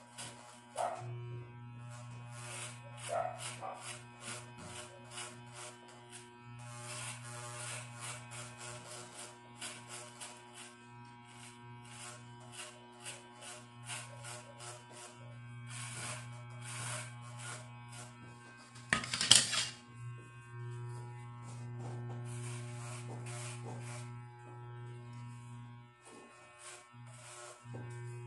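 Corded electric hair clipper running with a steady buzz while it cuts hair, with repeated short rasping strokes as the blades pass through the hair. About two-thirds of the way through comes one brief, much louder burst, and the buzz dips briefly twice near the end.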